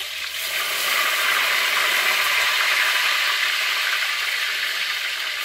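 Plantains frying in hot oil in a wok, a steady sizzle that grows louder about a second in.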